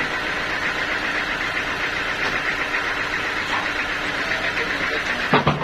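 Sawmill machinery running steadily with an even engine-like drone, and a short louder burst just before the end.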